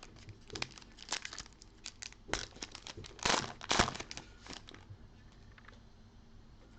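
Trading-card pack wrapper being torn open and crinkled: a run of crackles that is loudest about three and a half seconds in and dies away after about five seconds.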